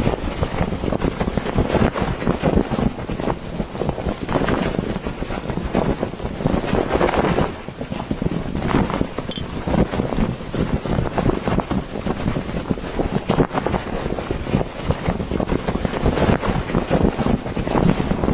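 Strong gusty wind, buffeting the microphone with deep rumbling surges that rise and fall every second or so.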